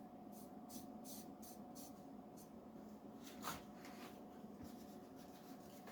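Near silence: faint light scratching and ticking, with one soft click about three and a half seconds in, over a faint steady hum.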